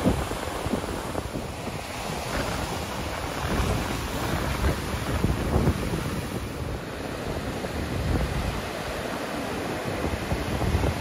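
Ocean surf breaking and washing in on the shore, a steady rushing wash, with wind buffeting the microphone in low, gusty rumbles.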